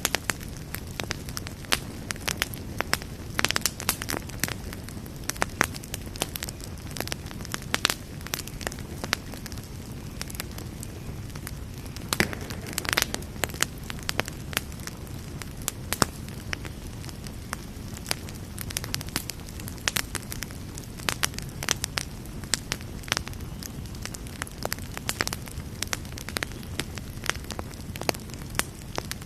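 Campfire burning with a steady low roar and frequent sharp, irregular crackles and pops.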